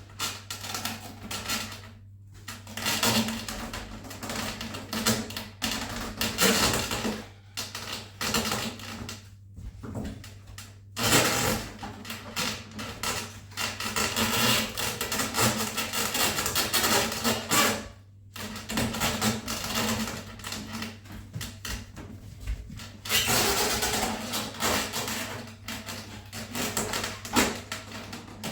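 Handling noise from a foam RC biplane resting on a squeaky foam stand: foam squeaking and rubbing, with plastic knocks and clicks, as the wing panel is worked into place. It comes in irregular stretches with a few short pauses, over a steady low hum.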